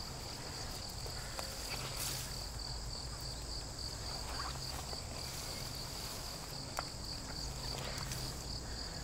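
A singing insect's high, steady trill, pulsing rapidly, over a low outdoor rumble, with a few light clicks and rustles, about two seconds in and again near seven seconds.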